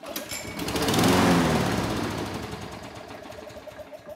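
Toro Recycler lawn mower's Briggs & Stratton single-cylinder engine, pull-started and catching at once, running for a few seconds and then losing power and dying out near the end. It is stalling soon after starting, which the owner puts down to a fuel problem.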